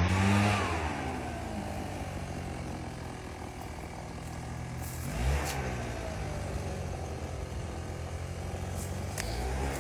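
Road vehicles running and passing by, their engine and tyre noise dipping in pitch as each goes past: once at the start, again about five seconds in and near the end.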